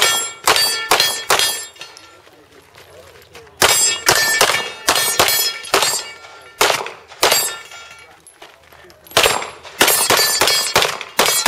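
Pistol fired in rapid strings: a few quick shots, a pause of about two seconds, a string of about nine shots, another pause, then about eight more, each shot roughly a third of a second apart. Some hits are followed by the ringing clang of steel targets.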